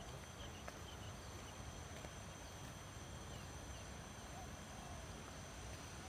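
Faint rural outdoor ambience: a steady high insect drone with a few faint bird chirps over it.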